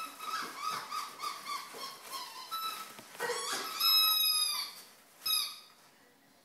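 Pet dog whining: a string of short, high whimpers, then a longer, louder whine about four seconds in.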